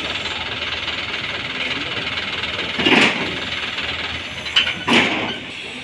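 Steady hiss broken by two loud knocks about two seconds apart, with a sharp click just before the second: metal power-loom parts being handled on a pickup truck's bed.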